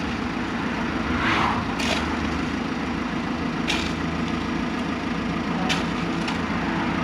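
Street traffic: a motor vehicle engine running steadily, with a vehicle passing about a second in and another just at the end.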